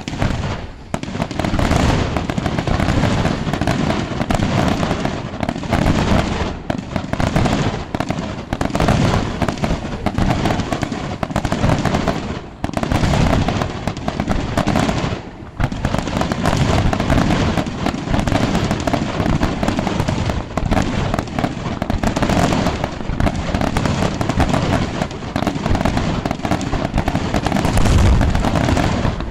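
Aerial fireworks display: a dense, continuous barrage of shell bursts and launches, many overlapping bangs a second, starting suddenly, with two short lulls around the middle.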